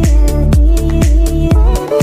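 Upbeat dance-style background music with a steady beat of about two kicks a second under held synth tones.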